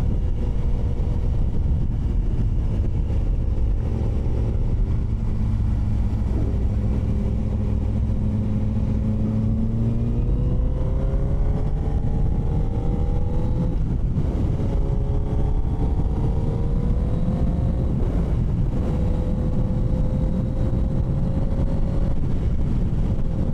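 Motorcycle engine under way with heavy wind noise over the microphone; the engine pitch climbs through the gears, dropping at each shift around the middle, then holds steady at cruising speed near the end.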